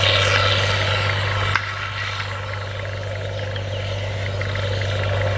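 Challenger MT865C tracked tractor's Caterpillar C18 diesel engine running steadily under load while pulling an eight-furrow Lemken plough, a low, even drone that dips slightly in level about a second and a half in.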